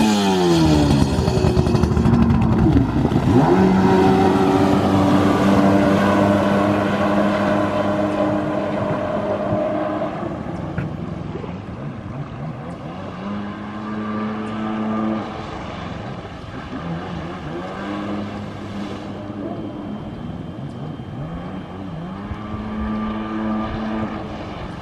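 A Kawasaki SXR800 stand-up jet ski's two-stroke engine revving hard on a test start, then running at high revs as the ski pulls away across the water. It fades with distance, and its pitch rises and falls as the throttle is worked.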